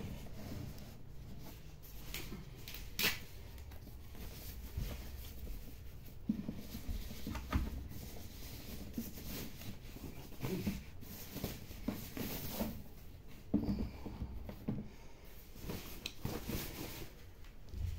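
Rustling and scraping of a white packing sleeve being pulled off a Numark PT01 Scratch portable turntable, with scattered light clicks and knocks as the unit is handled and set down.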